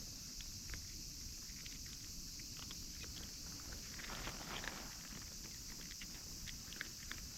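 Outdoor ambience: a steady high-pitched hiss with scattered small clicks and soft rustles, and a louder brief rustle about four seconds in.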